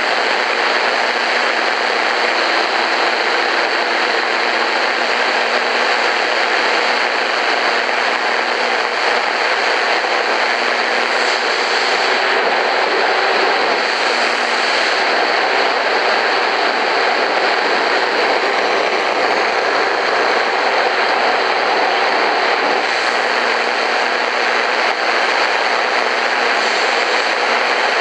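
Eton FR250 radio's speaker giving out steady shortwave static while the dial is tuned between stations, with a few faint steady hum tones in the hiss and no station coming through clearly.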